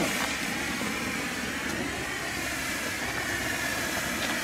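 Nico handheld green Bengal flare with 20 g of composition, burning with a steady hiss.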